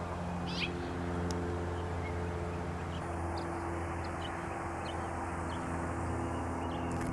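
Outdoor morning ambience: a steady low mechanical hum with a few short, high bird chirps over it, the clearest about half a second in.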